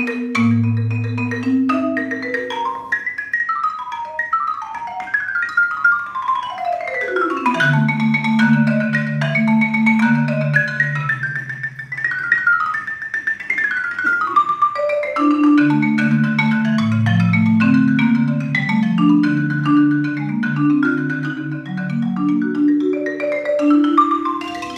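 Solo marimba being played with mallets: quick runs of struck notes, including a fast descending run about a third of the way in, over held low notes that continue beneath higher figures.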